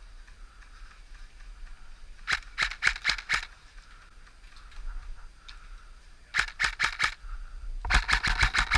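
Airsoft guns firing in short strings of sharp cracks: about six shots a couple of seconds in, four more past six seconds, then a quicker run of shots near the end.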